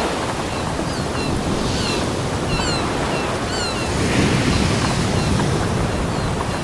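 Ocean surf washing onto a beach in a steady rush that swells again about four seconds in, with a scatter of short high chirps between about one and four seconds in.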